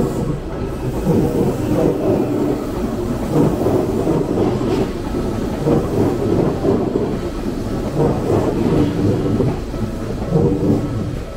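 A train passing: a loud, dense rumbling rattle that comes up at the start and eases off near the end.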